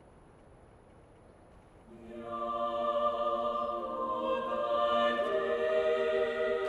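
Background music: faint hiss, then about two seconds in, slow choir-like chords swell in and are held.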